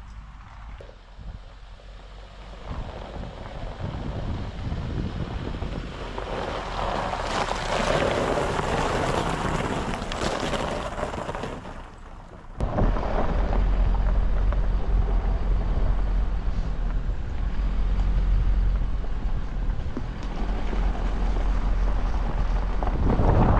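Toyota Hilux 4WD driving on a mountain road. For the first half its road and engine noise swells and then fades; after a sudden change, a loud, steady low rumble follows, with wind buffeting the microphone.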